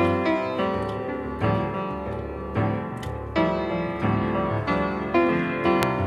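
Background instrumental music led by a keyboard, with notes struck in a steady rhythm about once a second.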